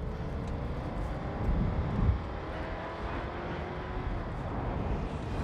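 A moving car's engine and road noise heard from inside the cab, a steady low rumble with a faint whine that slowly rises in pitch. A couple of low thumps come about two seconds in.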